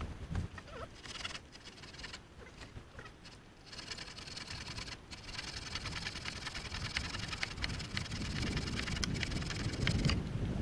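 Light rustling and pattering outdoors, with many small crackles over a steady hiss, and wind buffeting the microphone at the start and again near the end.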